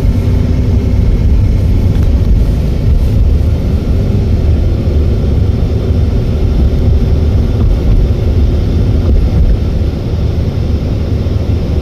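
Car driving at steady speed: a continuous low rumble of road and engine noise.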